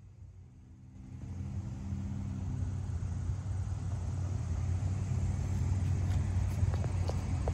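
Steady low rumble of road traffic, swelling about a second in and then holding.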